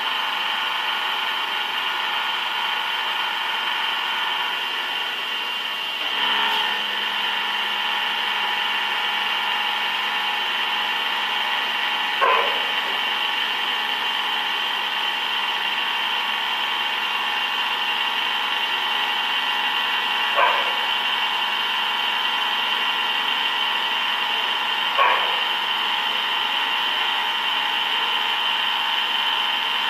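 Large lathe running with a steady, many-toned mechanical whine. A lower hum joins about six seconds in. Three brief sharp sounds stand out over it, at roughly eight-second intervals.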